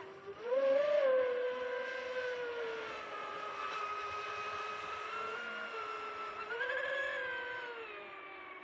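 Twin LMT 3060/5 brushless electric motors of a radio-controlled racing catamaran whining at speed on the water. The pitch climbs about a second in, holds steady, climbs briefly again near the end, then drops and fades as the boat runs away.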